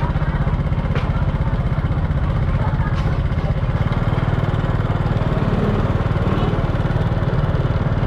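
Small motorbike engine running steadily close by, a fast even low putter throughout.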